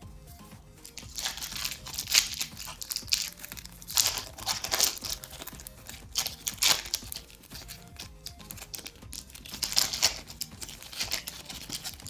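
Foil Pokémon card booster pack being torn open and its wrapper crinkled, in several short rustling bursts over soft background music.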